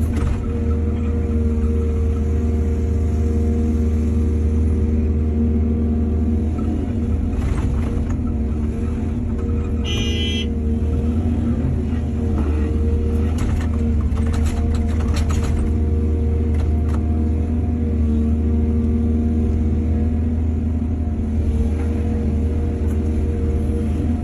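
Excavator's diesel engine running steadily with a low drone that rises and falls slightly, with scattered knocks and a brief high squeal about ten seconds in.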